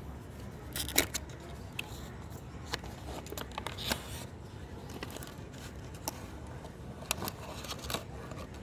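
Packaging of a charging adapter being handled and opened by hand: scattered clicks, taps and crinkles of cardboard and plastic, the sharpest about a second in, over a steady low background hum.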